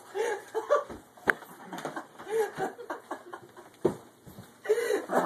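Two sharp slaps to a man's head, about a second in and again near four seconds, amid men's short wordless grunts, yelps and laughs.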